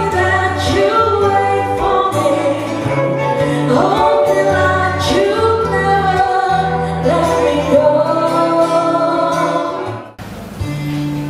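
A small live band playing a song, with a singer over guitar and low accompaniment. The music breaks off abruptly about ten seconds in, and quieter music follows.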